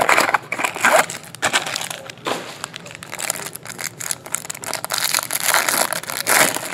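Clear plastic wrapper on a trading-card pack crinkling and crackling as hands tear it open and handle the cards inside, in dense uneven bursts.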